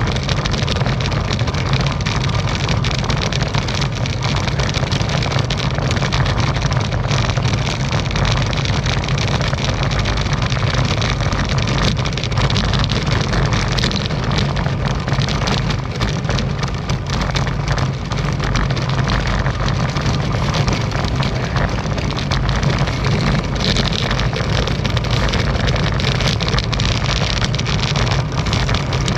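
Specialized Tarmac SL7 road bike riding over cobblestones, heard through a handlebar-mounted action camera: a steady, dense rattle and rumble from the tyres and frame.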